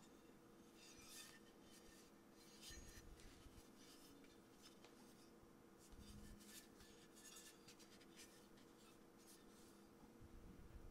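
Faint handling noise in several short spells: light rubbing and scraping with a few soft knocks, over a low steady hum.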